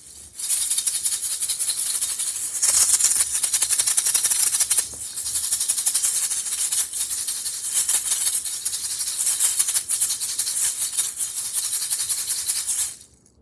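A pair of skull-shaped shakers, one in each hand, shaken fast and hard: a dense, continuous rattle with brief dips about two and a half and five seconds in, stopping abruptly near the end.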